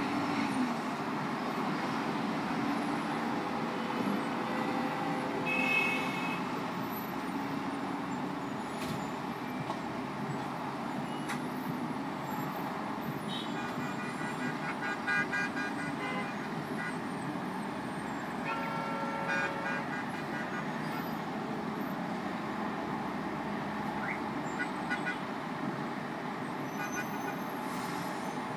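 Steady traffic noise from a busy city intersection, with car horns tooting now and then and a run of short repeated honks about halfway through.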